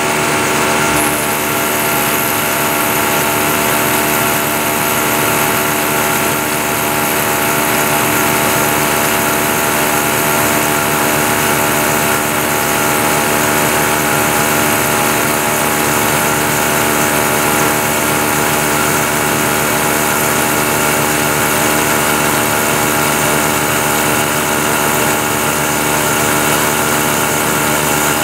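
Milling machine spindle running at its top speed, about 4,250 rpm, while a 3/32-inch end mill cuts a groove 30 thousandths deep in a metal part. The sound is a steady, even hum with several steady tones and no change in level.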